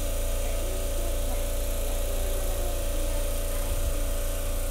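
Steady low electrical hum with a faint steady higher tone above it, unchanging throughout.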